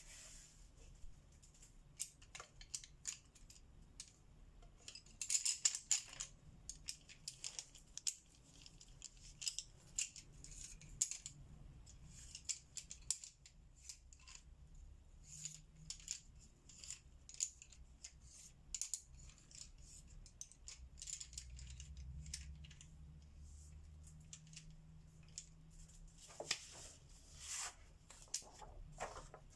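Close-up scratching of colouring strokes on paper: many short, irregular strokes, denser around five to six seconds in and again near the end, over a faint steady low hum.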